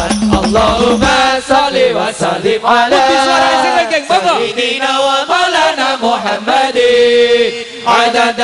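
Voices chanting an Islamic sholawat in long, held, ornamented lines. Hadrah frame-drum strikes stop about a second in, leaving the voices unaccompanied.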